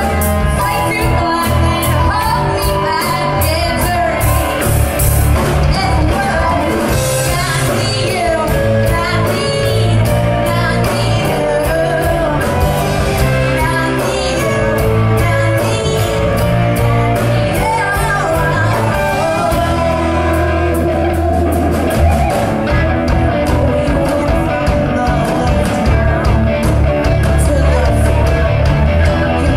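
Live rock band playing: a woman sings into a microphone over electric guitars, bass guitar and drums.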